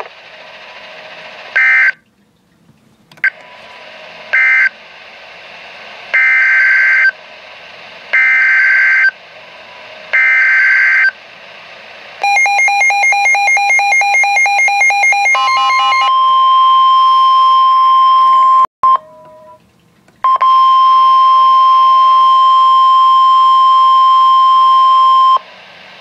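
NOAA Weather Radio alert signalling played through a Midland weather alert radio's speaker: three short buzzing SAME data bursts marking the end of one warning message, then three about one-second data-burst headers a second apart announcing a new alert. The radio then sounds a fast pulsing alarm beep, followed by the steady warning alarm tone, which breaks off briefly and comes back for about five seconds.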